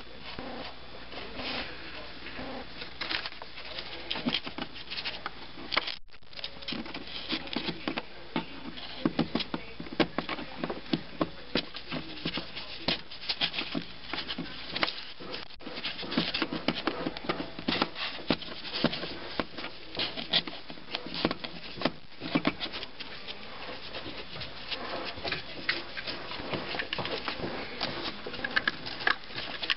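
Irregular rubbing, scraping and light tapping of hand work on a hard surface, with many short strokes and a few brief dropouts.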